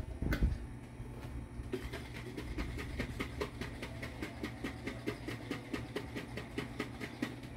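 An upended Alfredo sauce jar shaken hard over a pot to empty the last of the watered-down sauce, a quick even rhythm of about five strokes a second for several seconds, after a single thump about half a second in.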